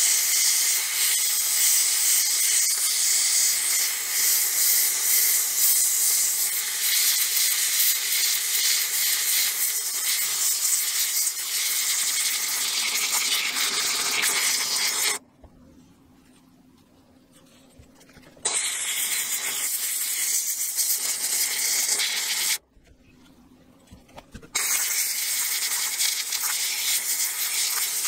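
Handheld steam cleaner hissing steadily as it blasts steam into an aluminium compressor housing. The hiss cuts off abruptly twice, for about three seconds and then about two seconds, before starting again.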